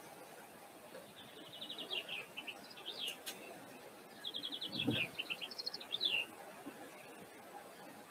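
A songbird singing two phrases, about three seconds apart, each a quick run of repeated high notes followed by falling notes.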